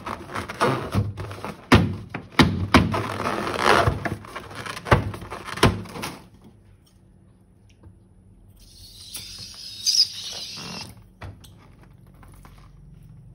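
Handling noises from slime-making with balloons: a dense run of sharp knocks and clicks for about six seconds, then a short pause and a softer hissing, rustling stretch with a click or two.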